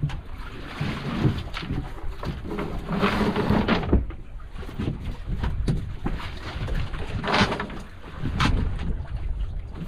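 Wind buffeting the microphone and sea water washing against a small outrigger fishing boat, with a few louder swishes and short knocks as the float and line are handled.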